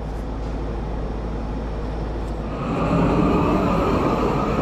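A steady low hum, then, about two and a half seconds in, the even rushing of a gas heating torch flame as it starts up to preheat the excavator boom's steel before welding.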